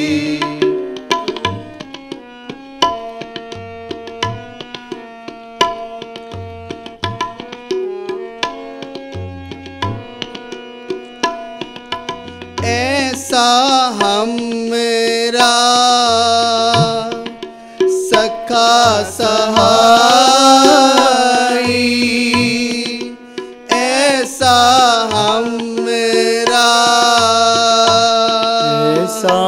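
Instrumental interlude of devotional kirtan: tabla keeps a steady beat under held harmonium notes. About halfway through, a louder melody with sliding, wavering notes comes in over them.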